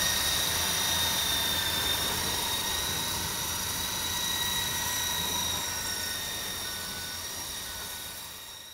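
E-Sky Lama V4 coaxial electric RC helicopter in flight: a steady high-pitched motor whine with rotor hiss, growing fainter as it moves away, then fading out at the very end.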